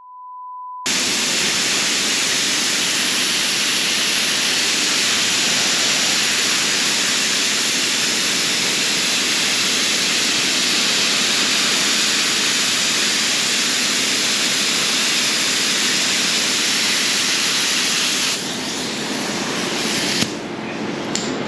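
A short beep, then a loud, steady hiss that thins near the end and drops off, with a sharp click shortly before the end.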